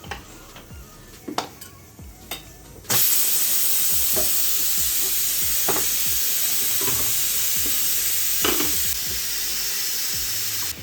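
Pressure cooker letting off steam as it whistles with chicken adobo inside: a loud, steady hiss starts suddenly about three seconds in and cuts off near the end, after a few light clicks. The whistle is the sign that the cooker has reached pressure.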